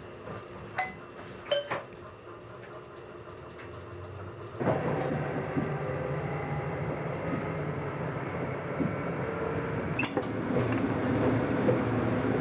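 A train running, heard from on board: a few short metallic clinks, then about four and a half seconds in a louder, steady running noise sets in abruptly and carries on.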